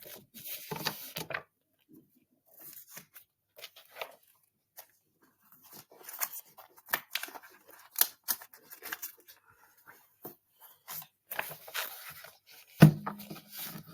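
Irregular small clicks and rustles, like things being handled close to the microphone. Near the end there is one sharp knock followed by a brief low hum.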